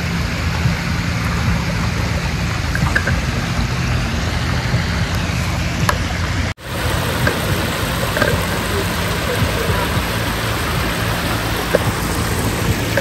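Steady rush of water from a small creek flowing over rocks, with a brief break about six and a half seconds in.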